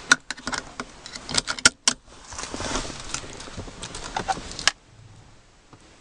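Car keys jangling and clicking on a key ring, ending in one sharp click about four and a half seconds in.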